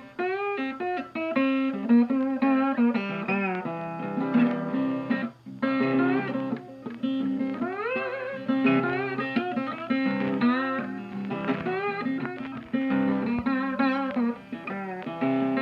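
Guitar-led background music, with plucked and sliding notes over a steady bass line.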